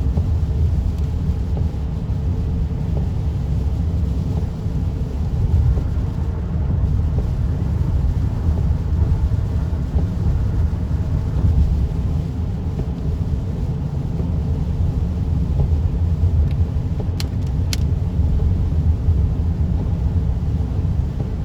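Car driving, heard from inside the cabin: a steady low rumble of road and engine noise. Two short clicks come about three quarters of the way through.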